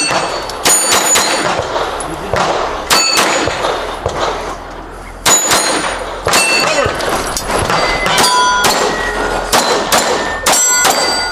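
A string of pistol shots, each followed by the ring of a struck steel plate target. The shots come singly and in quick pairs, with short pauses between groups.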